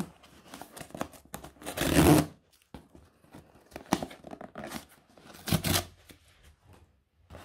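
Cardboard shipping box being torn open by hand: several short ripping tears, the loudest about two seconds in, with small handling clicks between them.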